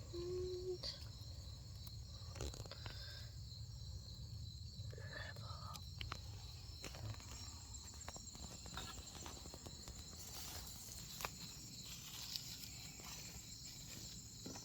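Steady chorus of insects, crickets trilling high and continuous, with scattered light knocks and handling noise over a low rumble.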